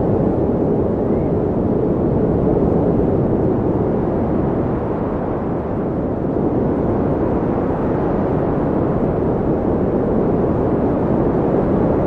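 Steady wind blowing, a deep, even rush that eases slightly about halfway through and then picks up again.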